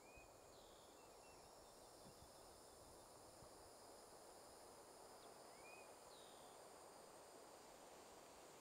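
Near silence: faint outdoor ambience in pine woods, with a few faint, short bird chirps, one near the start and another about five seconds in.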